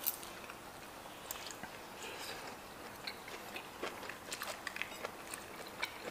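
People chewing and biting a stir-fry of crunchy young corn with chicken gizzard and liver. It is quiet, with scattered small clicks and crunches.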